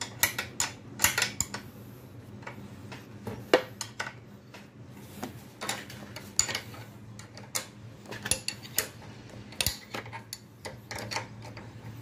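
Steel hand spanner clicking and clinking irregularly against the nuts of a motorcycle's front fork clamps as they are tightened, over a low steady hum.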